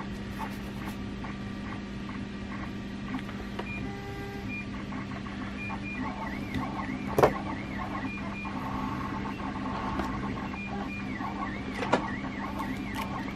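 Hand tool work on a thick battery cable at a bench: quiet handling noises over a steady low hum, with a sharp snap about seven seconds in and a smaller click near the end, as the cable end is cut and stripped.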